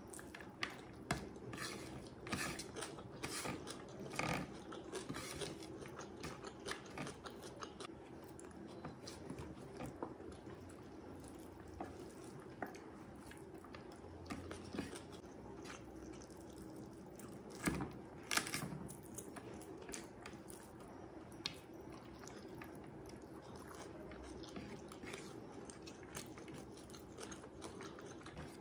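Close-up chewing and wet mouth clicks of someone eating rice biryani by hand, mixed with fingers scraping and pressing rice on a plastic plate. The clicks come irregularly, with a few sharper ones near the start and about eighteen seconds in.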